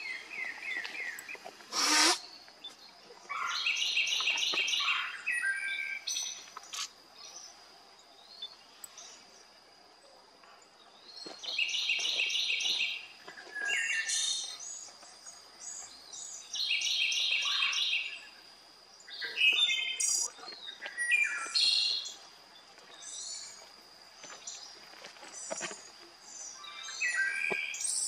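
Songbirds singing in woodland. One bird repeats a short, rapid, high trilled phrase of about two seconds every five or six seconds, with other birds' chirps and calls in between. A faint steady high whine runs underneath.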